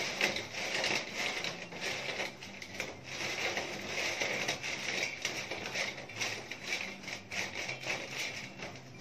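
Tissue paper crinkling and rustling as it is pressed and rubbed over fried french fries on a stainless steel plate, blotting off the oil, in many small crackly ticks that stop at the end.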